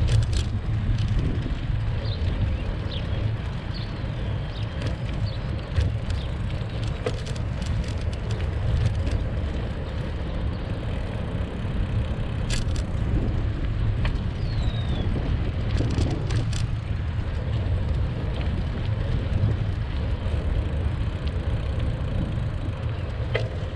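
Steady low rumble of wind on the microphone and tyres rolling on an asphalt path during a bicycle ride, with scattered clicks and rattles. A few faint bird chirps come through on top.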